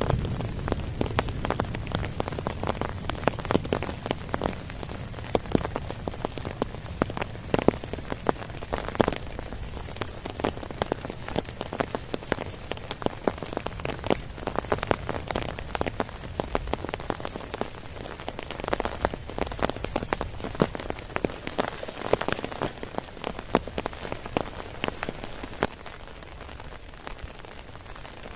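Rain falling steadily, with many sharp taps of individual drops striking close by. It eases a little near the end.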